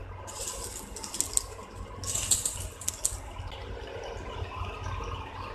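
Spice-coated taro root pieces deep-frying in hot oil, sizzling and crackling, with denser bursts of crackle as more pieces are dropped in.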